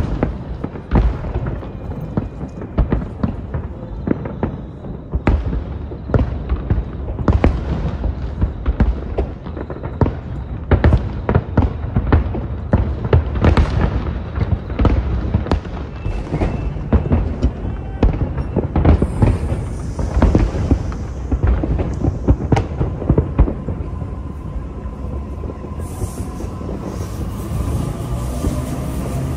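Fireworks going off in a rapid, dense string of bangs, easing off in the last few seconds as a steadier noise with a faint whine takes over.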